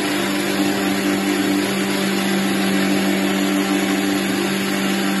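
A 750-watt electric mixer grinder running steadily with its stainless-steel jar, a constant hum under a whirring hiss, as it grinds a batch into a fine paste.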